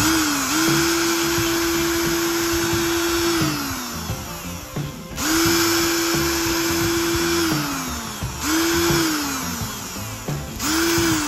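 Small electric motor, like a hand drill's, run in four bursts: each time it spins up to a steady whine, then falls in pitch as it winds down after being released. The first two runs last a few seconds, the last two are short.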